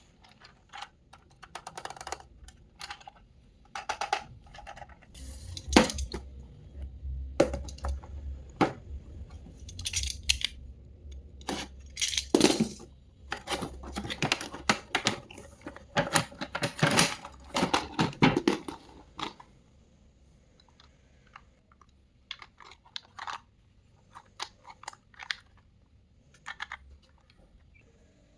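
Hands unpacking and handling a toy and its packaging: irregular clicks, taps and rustling of plastic and cardboard, with dull bumps against the table. The handling is busy for most of the stretch, then thins to a few scattered clicks near the end.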